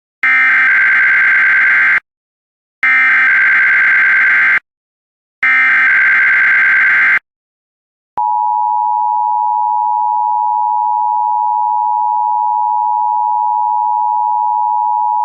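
NOAA Weather Radio EAS alert signal for a weekly test. It starts with three short bursts of harsh, buzzing SAME digital header data, each lasting under two seconds. About a second after the third burst, a single steady, piercing warning alarm tone begins and holds.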